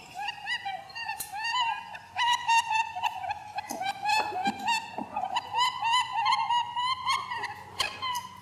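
A rapid, continuous string of short, high-pitched squeaky animal chirps, several a second, with a few sharp clicks among them.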